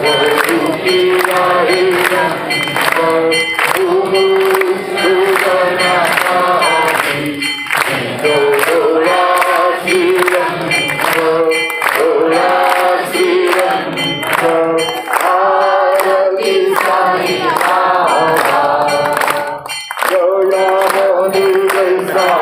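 Several voices singing a devotional song together over a steady beat of sharp percussion strikes.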